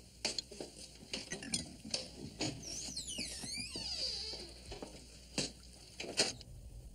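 Clinks and knocks of glasses and crockery, a dozen or so short sharp strikes, with a high squeak that glides up and down for about two seconds near the middle.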